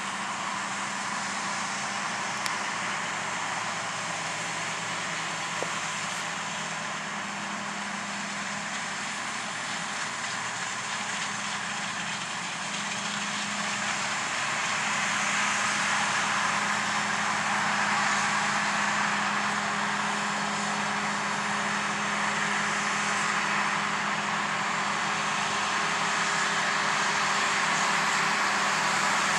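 Large diesel farm machinery running steadily, a constant hum under a broad whirring hiss, getting louder about halfway through.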